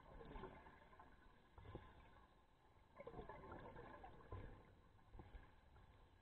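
Faint, muffled gurgle and rumble of scuba divers' exhaled air bubbles heard underwater, coming in irregular swells a second or so apart.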